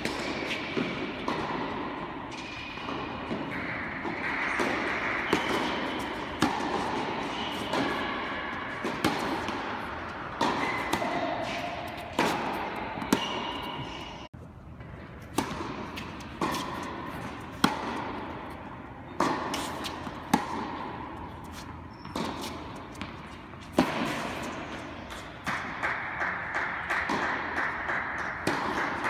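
Tennis balls struck by rackets and bouncing on an indoor hard court: irregular sharp cracks that echo through the hall, over steady background noise.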